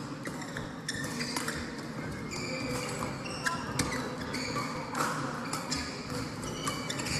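Badminton rally: rubber-soled shoes squeak in many short, high squeals on the court floor among sharp pocks of rackets hitting the shuttlecock, with play from other courts echoing in the hall.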